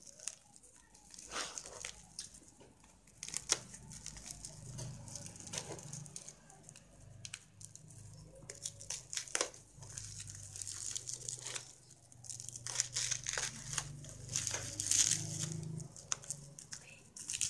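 A small blade slitting thick packing tape on a plastic-wrapped parcel, with irregular crinkling of the plastic wrap and the tape tearing as it is peeled away.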